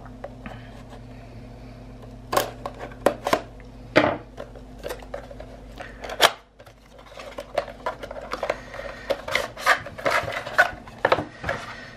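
Hands opening and handling the hard plastic packaging of a spare camera battery: scattered clicks and knocks, a few at first and many more in the second half.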